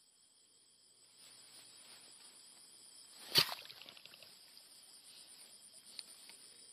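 A seven-pronged fish spear stabbed once into shallow, weedy water: a single sharp splashing hit about halfway in, with a brief spatter after it. Steady chirring of night insects runs underneath.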